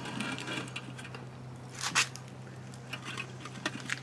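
Hands rustling and scraping apple wood chunks and a wire grate down in a Big Green Egg's ceramic firebox, with light clicks and one sharper clatter about two seconds in. A steady low hum runs underneath.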